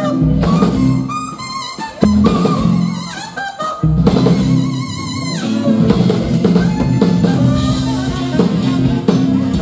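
Live band with a saxophone solo: the saxophone plays short wavering phrases over the drum kit and band.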